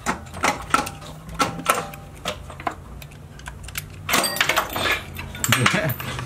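Hand tools working on an engine's water pump bolts: irregular metallic clicks and clinks of a wrench or ratchet, busiest about four seconds in, over a low steady hum.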